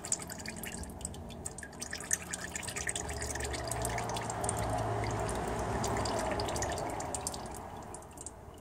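Transmission fluid trickling and dripping out of the open level-check plug hole of a Ford Powershift 6DCT450 dual-clutch gearbox: the excess from a slight overfill running off as the fluid settles to the correct level. Many small drip ticks over a soft splashing trickle that swells in the middle and fades near the end.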